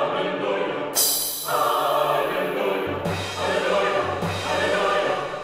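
Background music with a choir singing long held chords that change a few times.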